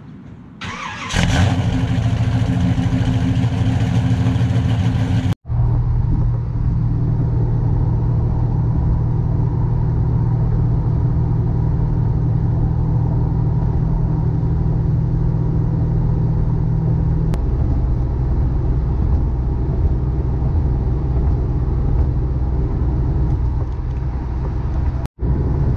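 A car engine comes in loudly about a second in and runs with a steady note. After a cut, the same kind of engine is heard from inside the cabin, running steadily at highway speed, its note dropping slightly about two thirds of the way through.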